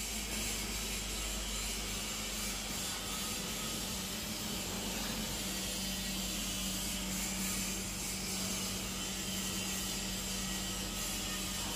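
Steady machinery noise in a ship's engine room: an even rushing sound over a constant low hum.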